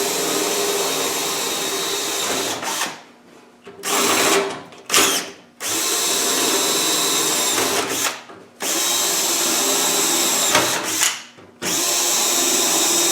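Power drill running in about six short runs of one to four seconds each with brief pauses, drilling rivet holes through the seat box panels.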